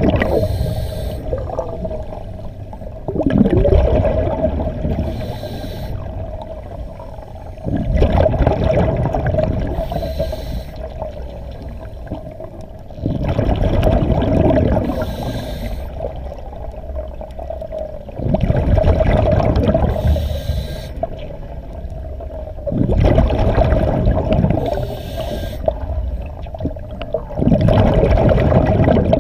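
Scuba diver breathing through a regulator underwater: a breath about every four to five seconds, each a rush of air and bubbling exhaust, then a quieter pause before the next.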